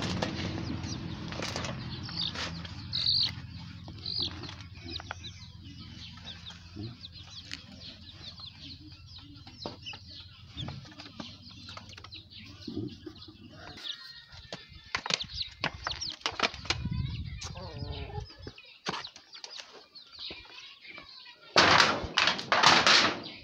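Chickens clucking and chicks peeping, with a small hand hoe scraping through compost early on and a low steady hum that stops about fourteen seconds in. Near the end comes a loud flurry of rustling and flapping.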